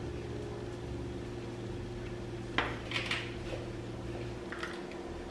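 A metal knife clicking and scraping against a container a few times, over a low steady hum: butter being scooped and scraped off the knife.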